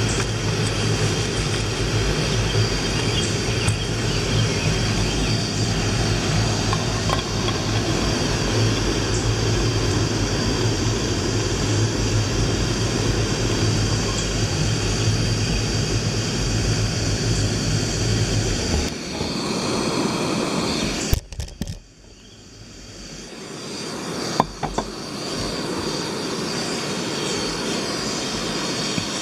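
Canister gas backpacking stove burning under a pot of water: a steady roar with a low hum. About 21 seconds in the roar drops away sharply, then builds back up over the next few seconds, with a sharp clink near 24 seconds.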